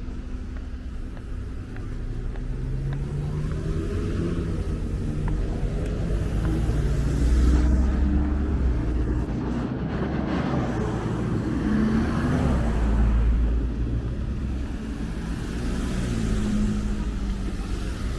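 Motor vehicle engines running with road rumble, a deep drone with shifting engine tones that swells about seven seconds in and again near thirteen seconds.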